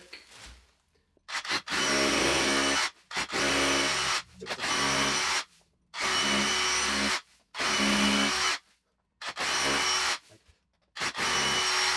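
Cordless DeWalt SDS hammer drill boring 6 mm holes into a brick wall, run in about seven short bursts of a second or so each with brief stops in between.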